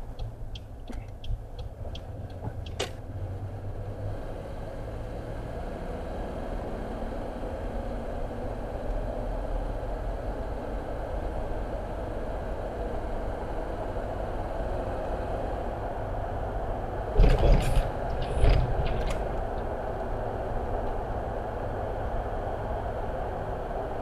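Car driving, heard from inside the cabin: a steady engine and tyre rumble that grows a little louder as the car picks up speed. A few quick ticks, likely the indicator, come right at the start, after a turn at an intersection. About seventeen seconds in, a cluster of loud knocks or bumps is heard.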